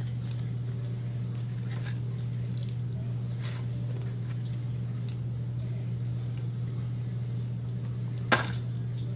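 Close-up chewing and small wet mouth sounds of a boy eating French fries, with faint clicks from handling the foam takeout box, over a steady low hum. One sharp click comes near the end.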